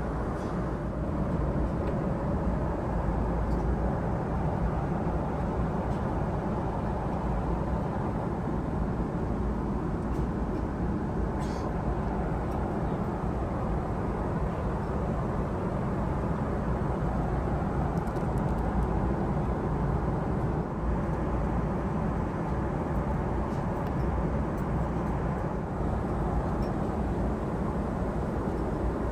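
Steady low rumble inside a jet airliner's cabin, the even mix of engine and air-conditioning noise.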